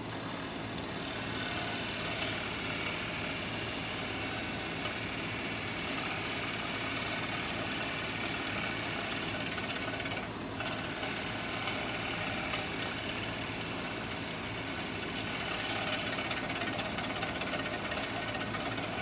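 Wood lathe running while a bowl gouge takes a very light finishing cut on a spinning natural-edge pear-wood bowl: a steady hiss of cutting over the lathe's hum. The cut breaks off briefly about ten seconds in.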